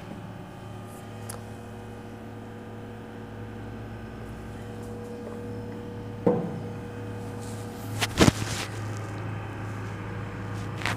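Steady low room hum, broken by a short thud about six seconds in and a sharp knock, the loudest sound, a little past eight seconds.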